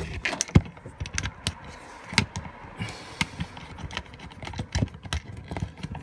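Irregular small clicks, taps and rattles of hand-tool work: a screwdriver turning the terminal screws for the plus and minus supply leads on a 12 V compressor fridge's control module, with the wires being handled.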